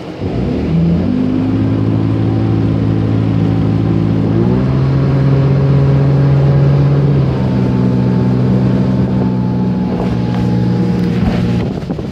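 Volvo Penta 4.3 GL V6 sterndrive engine of a Glastron SX-175 runabout under way. It revs up in the first second, climbs in pitch again about four and a half seconds in, holds steady, and drops away near the end, over the steady rush of water and wind.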